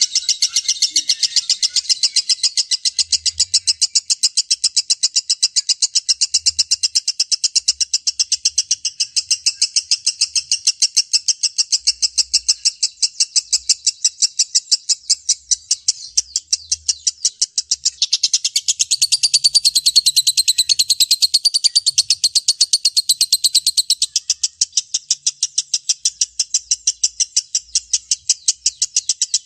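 Lovebird in a long, unbroken ngekek: a rapid run of short, high-pitched chattering notes. About two-thirds of the way in, a wavering, warbling note rides over the chatter for several seconds.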